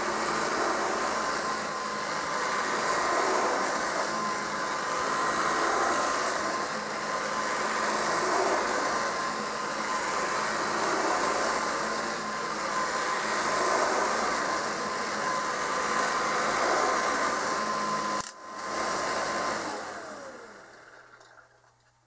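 Kirby 560 upright vacuum cleaner, a machine over 50 years old with freshly oiled brush roll bearings, running great on carpet with a steady motor whine, swelling and fading every few seconds as it is pushed back and forth. Near the end it is switched off and the motor winds down with a falling whine.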